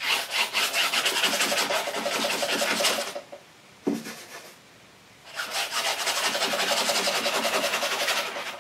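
A brush scrubbing oil paint onto a stretched canvas in rapid back-and-forth strokes, a dry rasping rub. About three seconds in the strokes stop for roughly two seconds, with a single short knock in the pause, then they start again.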